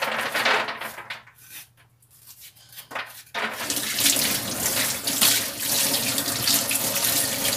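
Kitchen tap running into a stainless steel sink, the water splashing over a peeled green papaya half as it is rinsed by hand. The flow goes quieter for about two seconds, from a second in, then runs steadily again from about three and a half seconds in.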